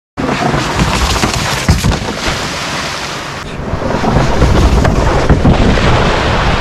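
Loud, steady rush of river rapids, with wind buffeting the microphone.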